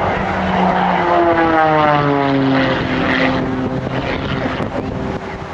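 Aerobatic propeller plane's engine at high power, its pitch falling steadily over a few seconds as it climbs away, the sound easing off toward the end.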